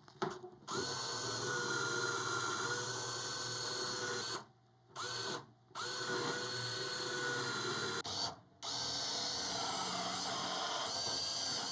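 Fanttik cordless mini hand drill whining steadily as it drills out steel rivets in a computer case, running in four stretches with three short stops between them.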